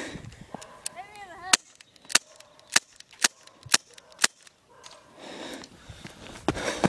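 Clear plastic airsoft pistol firing about six shots in quick succession, roughly two a second, each a sharp snap.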